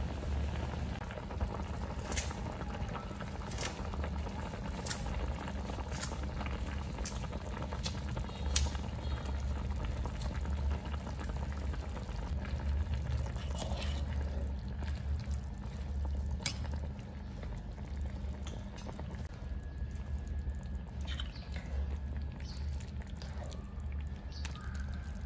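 Khmer khor mam stew boiling in a clay pot: a steady bubbling over a low hum, with a few sharp pops in the first half, growing softer in the second half.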